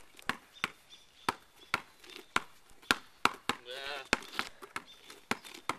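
Basketball dribbled low and fast on asphalt, a quick run of bounces about two to three a second.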